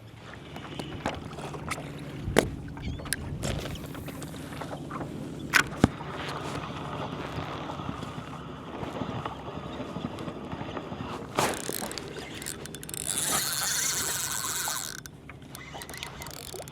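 Water sloshing around a kayak hull, with scattered sharp knocks and clicks, and a louder hiss lasting about two seconds near the end.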